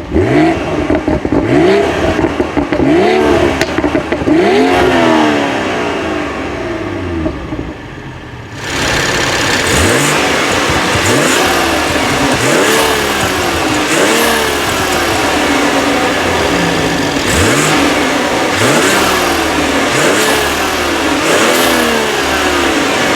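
2018 BMW X3 M40i's turbocharged 3.0-litre inline-six revved repeatedly in short blips, each rise in pitch falling back to idle, roughly once a second. About eight seconds in the sound jumps to a hissier take, and the blips go on.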